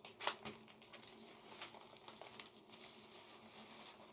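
Plastic shrink wrap being split and peeled off a vinyl record sleeve: faint crinkling and rustling with small crackles, and a couple of sharper clicks at the start.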